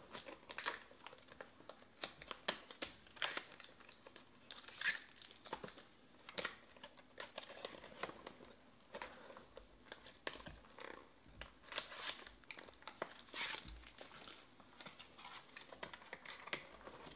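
Trading card packs and their wrappers being handled and opened by hand: irregular crinkling and small tearing crackles with light clicks throughout.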